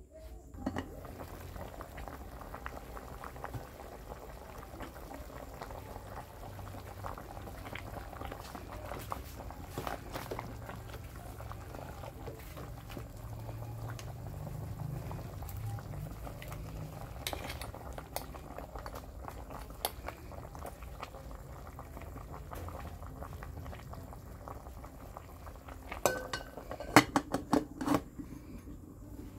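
Pot of pig head in broth boiling steadily with a bubbling crackle. Near the end an aluminium lid clanks several times against the pot as it is set on.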